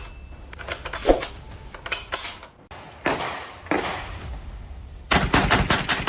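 Sharp metallic clacks and rattles of firearm handling, then a fast string of gunshots about five seconds in.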